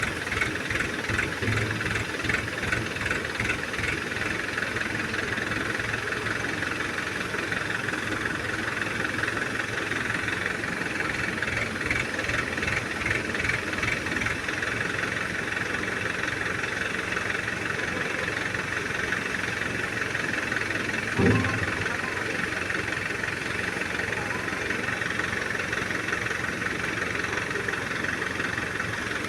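A 14-ton Hydra crane's diesel engine running steadily under work, with a hissing mechanical noise over it. A single short clunk comes about two-thirds of the way through.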